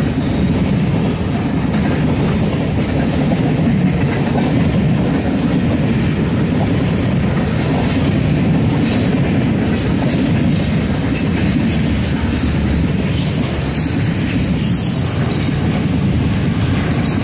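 Freight train cars rolling past close by: a steady loud rumble of steel wheels on the rails, with sharp high clicks and rattles from the wheels becoming more frequent from about halfway.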